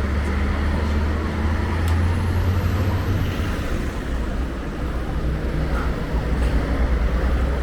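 Street traffic: a motor vehicle's engine running with a low rumble that swells about two seconds in and then eases, over a steady haze of road noise.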